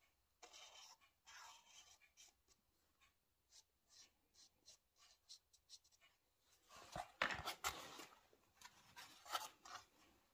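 Faint scratching of a marker pen drawn across a plastic engine cooling shroud in short strokes, then the stiff plastic shroud handled and knocked a few times, loudest about seven seconds in.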